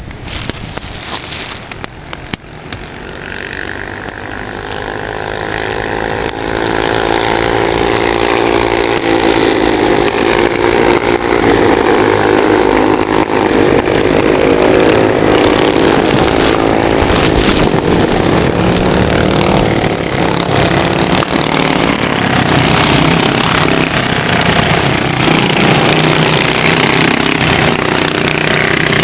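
Go-kart engines running together, their pitch and loudness rising over the first several seconds as they pick up speed, then holding steady at high revs.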